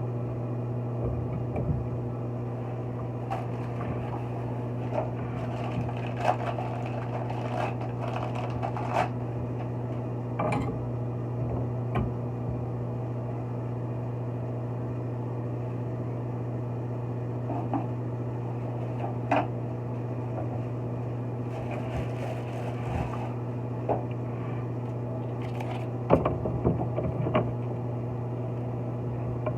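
A steady machine hum with a low, even drone, and scattered short clicks and knocks of work over it.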